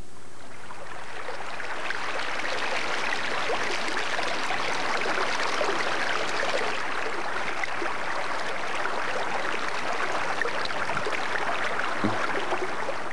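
Fast-flowing Salmon River running over riffles and rapids: a steady, even rush of water.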